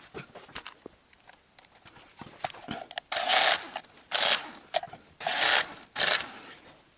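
A tool tightening the small oil pump cover bolts on a Toyota 3S-FE-type engine. A few light metallic clicks come first, then four short rasping bursts, starting about three seconds in.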